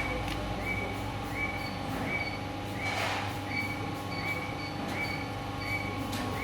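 Nagai 116 paper-cutting guillotine running with a steady mechanical hum. A short high chirp repeats nearly twice a second over it, and two brief louder swishes come about halfway and near the end.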